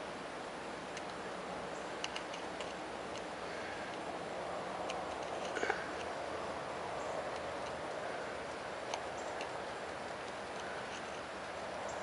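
Light, irregular clicks and scrapes of a tiny hand-held drill bit being pushed into the calcium-clogged nozzle holes of a shower head, breaking up the calcium deposits. A short burst of clicks about halfway through is the loudest.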